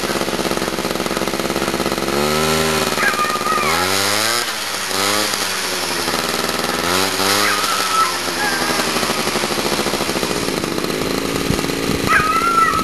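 Small petrol engine of a lure-coursing machine running as it drags the lure, its pitch swinging up and down several times as it revs. A few short, high squeals come through over it, near the end as well.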